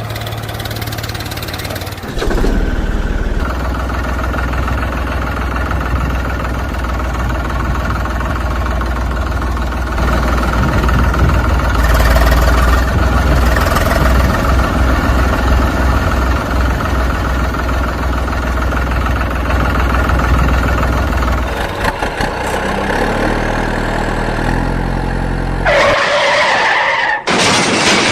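An engine running steadily at a constant speed, with a low hum. Near the end its tone changes in a few steps, followed by a brief loud burst of noise.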